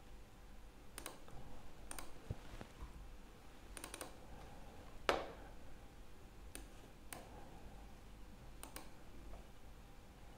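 Faint computer mouse clicks, single and in quick pairs, every second or so, with one sharper, louder click about halfway through.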